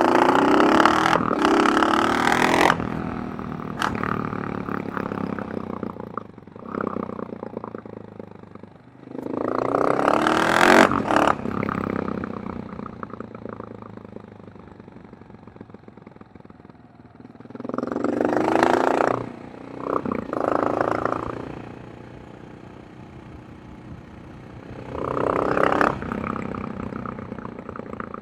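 KTM 690 Enduro R's single-cylinder engine and exhaust, opened up in five bursts of throttle, its pitch rising with each, and falling back to a lower, quieter run between them.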